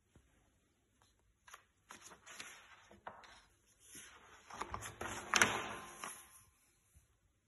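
Paper pages of a handmade book being turned by hand, rustling and crinkling with a few sharp crackles, starting about a second and a half in and loudest a little after five seconds.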